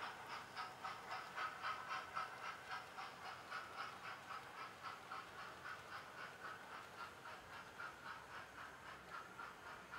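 Sound-fitted OO gauge Castle class model steam locomotive (Hornby TTS sound) running at speed, its small onboard speaker playing a quiet, even beat of steam chuffs at about four to five a second.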